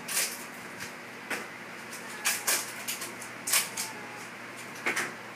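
Irregular light clicks and knocks, several short taps spread over a few seconds, with a cluster about two to four seconds in.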